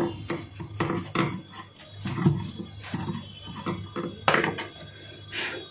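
A stiff brush scrubbing the circuit board and plastic housing of a CCTV camera in short, irregular scratchy strokes. Two louder strokes come about two and four seconds in.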